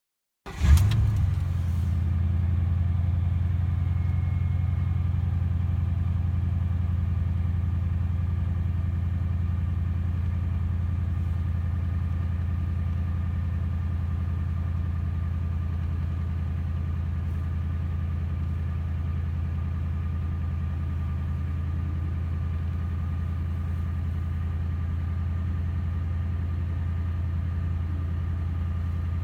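2005 Ford Crown Victoria's 4.6-litre V8, with dual exhaust and Thrush glasspack mufflers, starting up, heard from inside the cabin: a short crank and a brief rev as it catches under a second in, then a steady, low-pitched idle that eases off slightly over the following seconds.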